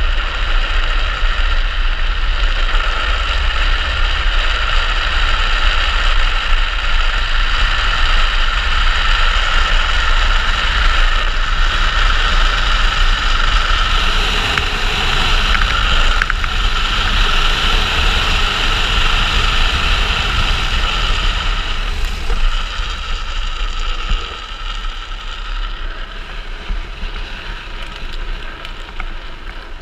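Wind rushing over a helmet-mounted camera and a speed trike's wheels rolling fast on asphalt: a steady, loud rushing noise that turns quieter over the last few seconds.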